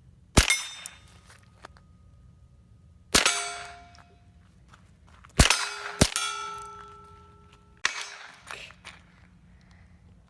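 Five sharp rifle shots a second or two apart, the fourth coming quickly after the third, several followed by the metallic ring of steel targets being struck.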